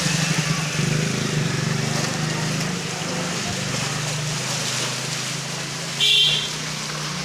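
Water splashing as a bicycle is pushed through shin-deep floodwater by someone wading, over a steady low engine hum. A brief sharp, high sound comes about six seconds in.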